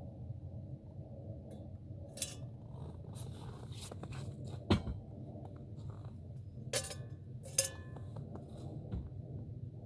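Camp cookware being handled: a few sharp clinks and knocks with some rustling, the loudest about halfway through and two more close together a little later, over a steady low rumble.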